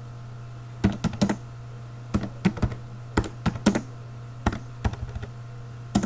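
Typing on a computer keyboard: short runs of keystrokes with brief pauses between them, over a steady low hum.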